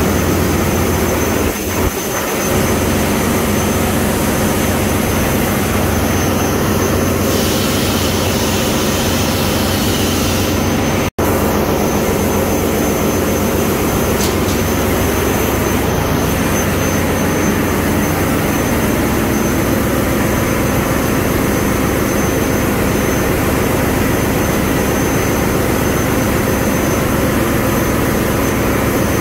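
Loud, steady engine-room machinery noise from running marine diesel engines: a dense, even drone with a low hum. The sound cuts out for an instant about eleven seconds in.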